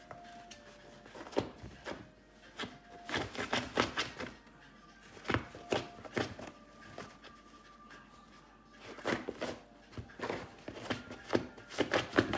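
A miniature Australian Shepherd puppy rummaging through a canvas bin of plush and rubber toys: bursts of rustling, bumping and clattering as it digs, with a quieter stretch past the middle.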